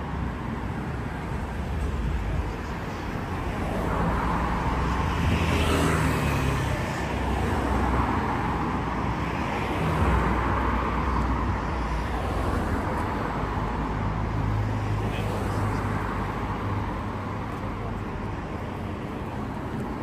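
City road traffic noise, swelling about four seconds in and easing off after about twelve seconds.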